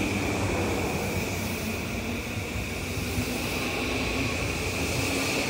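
JR East E235 series 1000 electric commuter train accelerating out of the platform, its cars rolling past close by with continuous running noise and a steady high whine.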